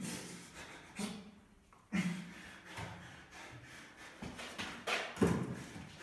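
Wooden frame knocking and scraping against a concrete wall and floor: several sudden knocks with rubbing between them, the loudest about five seconds in, echoing in a bare concrete room.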